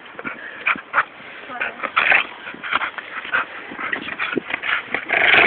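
Staffordshire bull terrier cross pit bull making short, separate high-pitched noises while worked up and being set on to grab hold.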